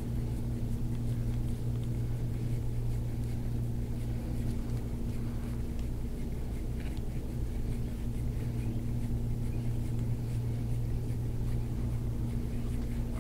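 A steady low machine hum that holds level without any change or rhythm.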